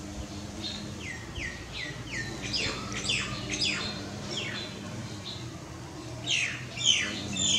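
Small birds chirping: a run of quick calls, each sliding downward in pitch, coming more densely and louder after a couple of seconds.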